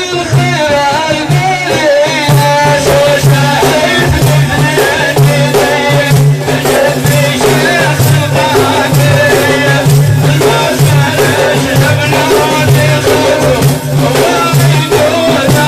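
Sufi dhikr chanting: a man's solo voice sings a wavering melodic line over frame drums with jingles beaten in a steady rhythm.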